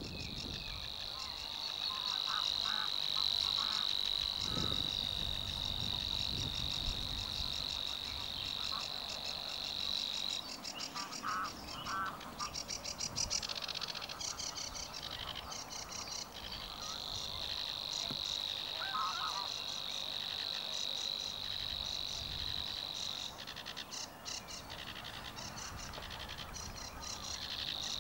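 Savi's Warbler singing its reeling song: a long, even, fast buzzing trill. One reel runs about ten seconds and stops, rapid ticking fills the gap, a second reel runs about seven seconds, and a third starts near the end.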